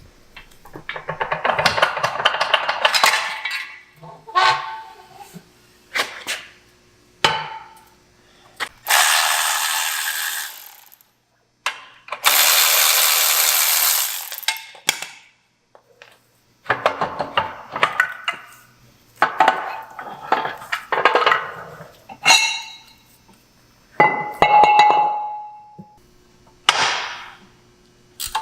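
Tools working on a Moser 9-inch rear axle: irregular metal clanks and rattles, with two loud steady hisses of about two seconds each near the middle and a short metallic ring later on.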